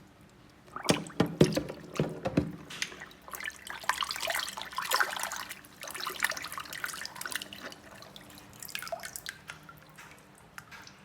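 Water splashing and dripping as miniature toy cars are washed in water. A few sharp knocks come about a second in, then a busy run of splashes and drips that thins out toward the end.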